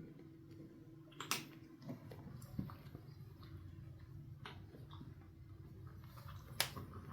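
Scattered light clicks and knocks from Maine Coon kittens scuffling and play-fighting, with sharper ones about a second in, around two and a half seconds and near the end, over a low steady hum.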